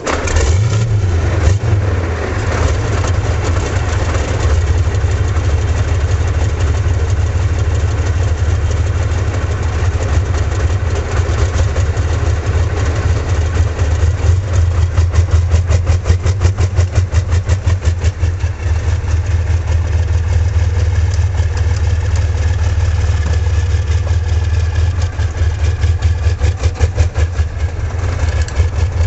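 Soviet T-55 tank's V-55 V12 diesel engine catching right at the start and running loudly with a deep, regular pulsing beat.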